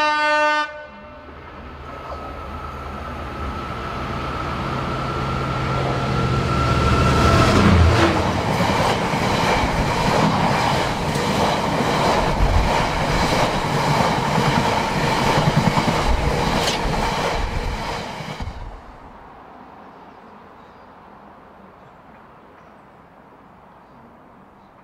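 Class 66 diesel locomotive passing: its horn ends about half a second in, then its EMD two-stroke V12 engine grows louder as it approaches and passes about eight seconds in. A long rake of bogie tank wagons follows, wheels clattering over rail joints, until the train's sound falls away after about eighteen seconds.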